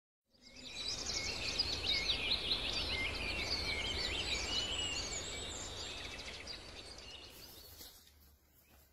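A dense chorus of songbirds, with many overlapping chirps and trills over a hiss of background noise. It fades in just after the start and fades out over the last few seconds.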